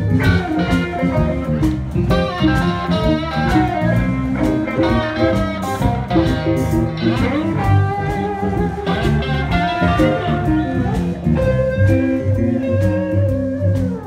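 Live blues band playing, with an electric guitar taking the lead in bent and sliding notes, one note held near the end, over the band's steady rhythm.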